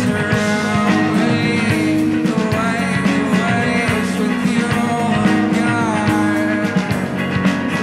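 Live band playing a song: electric guitar, bass guitar, keyboard and drums, with a male voice singing.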